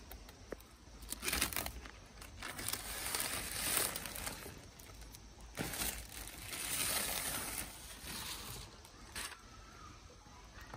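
Plastic protective film on a flexible solar panel crinkling and rustling in several bursts as the panel is handled and laid onto a car roof.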